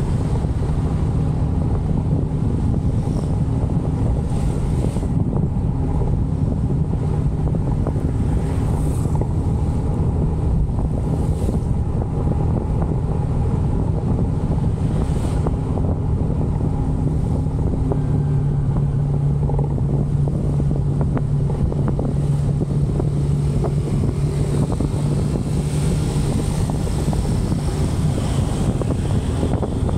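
Motorcycle engine humming steadily while riding at cruising speed, with wind buffeting the microphone. The engine hum swells for a stretch past the middle.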